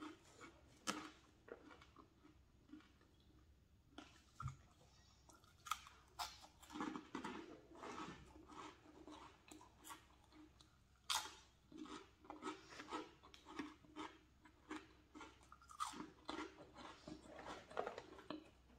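A person chewing crunchy snack chips, with faint, irregular crunches and clicks as each bite is broken down.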